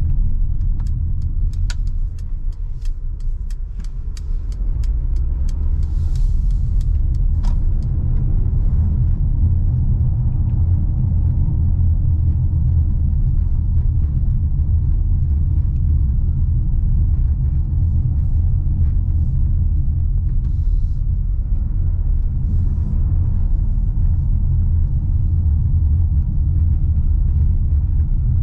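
Mercedes-Benz GLA driving, its 1.3-litre turbocharged four-cylinder engine and tyres making a steady low rumble. A run of quick, faint clicks sounds over the first several seconds.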